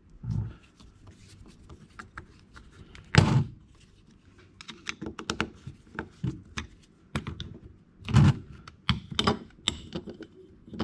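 Irregular clicks and taps of a hand screwdriver driving screws into a plastic tool housing, with two louder thunks, about three seconds in and again about eight seconds in.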